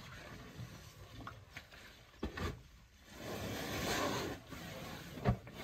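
An African elephant shifting her weight and working with her trunk in wet mud: scraping and squelching, a couple of short dull knocks, and a longer rush of noise in the middle.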